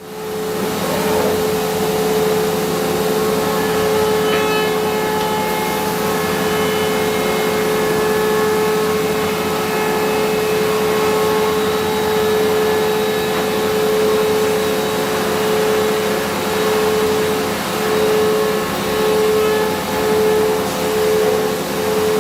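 Woodworking machine running with a steady hum at one pitch. In the last several seconds the hum pulses regularly, about once a second.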